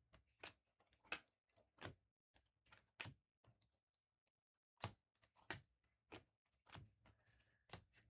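Trading cards being flipped through by hand: soft, quiet clicks and flicks as each card is slid off the stack, about one a second with a short pause in the middle.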